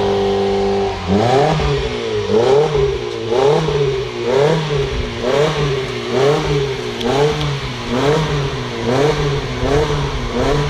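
Mitsubishi Lancer EX 1.8's four-cylinder engine through a TYPE ONE aftermarket exhaust with titanium dual tips. It is held at high revs, drops about a second in, then is blipped up and back down about once a second.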